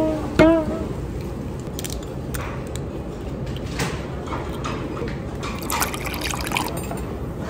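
A green glass soju bottle being opened, its cap twisted off about four seconds in, then soju poured into a small shot glass about six seconds in, over a steady background hum.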